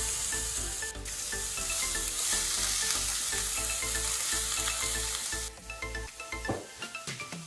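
Grated carrot and onion sizzling in hot oil in a frying pan as a sofrito, stirred with a spatula. The sizzle cuts off about five and a half seconds in, leaving light background music.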